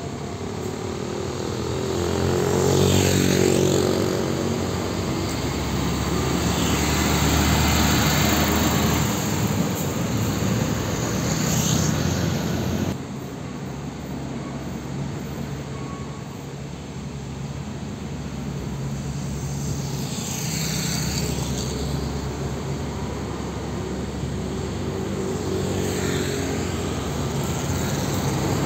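Heavy diesel trucks running slowly in road traffic: a UD Quester tractor unit hauling a container, then, after an abrupt drop in the sound about halfway through, a Hino tanker truck coming on, while motorcycles and cars swell past close by several times.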